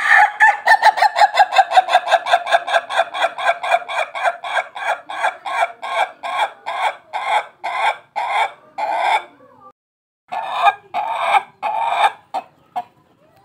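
Ayam Ketawa (Indonesian laughing chicken) rooster crowing: a long laughing run of rapid staccato notes, about five a second at first, that gradually slow and spread out over some nine seconds, then after a short pause a few longer drawn-out notes and a last short one.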